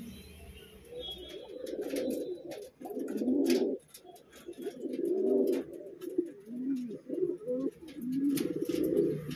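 Domestic pigeons cooing: a run of low coos, one after another, starting about a second in, with a few light clicks among them.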